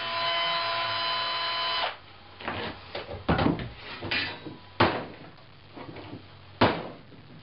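A steady buzzing hum that cuts off after about two seconds, followed by rustling and three sharp knocks.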